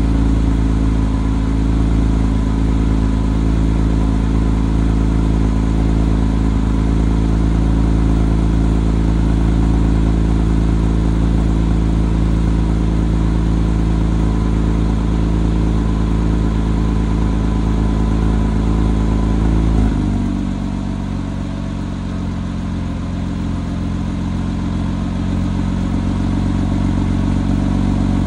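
2008 Porsche Boxster Limited Edition's flat-six idling after a cold start, heard at the exhaust. About twenty seconds in, the raised cold-start idle steps down to a lower, quieter idle as the engine settles.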